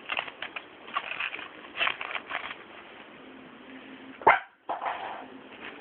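A six-week-old Papillon puppy making small yips and whimpers among scattered short clicks and scuffles. A loud sharp sound comes about four seconds in, followed by a moment of silence.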